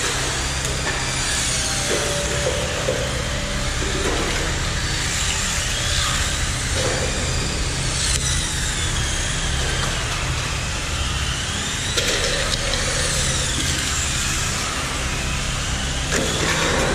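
Several Tamiya electric radio-controlled model cars racing on a concrete floor. Their motor and gear whine rises and falls over and over as they accelerate and brake through the corners, over a steady rumble of tyres, with a few sharp clicks.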